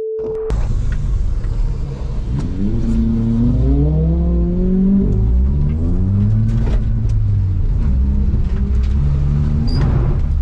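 Nissan 350Z's V6 engine revving hard, its pitch climbing and dropping several times over a steady low rumble.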